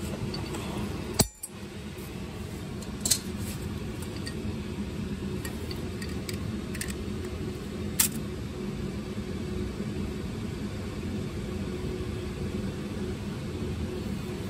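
A sharp snip about a second in as side cutters cut the retaining strap that holds a new gas-charged shock absorber compressed, then a couple of light clicks as the freed shock slowly extends. A steady low hum runs underneath.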